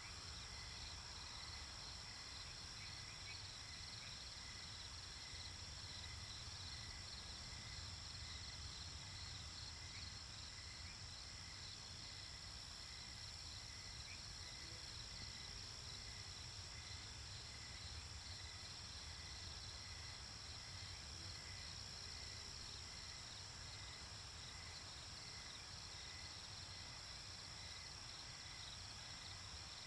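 Crickets chirping in a steady chorus: a continuous high trill with rapid pulsing chirps layered over it, and a constant low rumble underneath.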